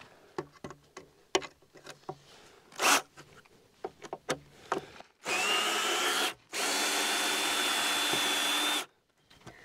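Power drill backing screws out of a wooden brace on a fence post. It runs twice, for about one and two seconds, with a whine that rises as it spins up in the first run, after a few light knocks and clicks of handling.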